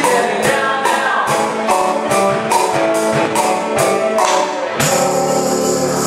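Live band music with singing, acoustic guitar and keyboard over a steady percussion beat of about two strokes a second. About five seconds in the beat stops and the band holds a final chord, ending the song.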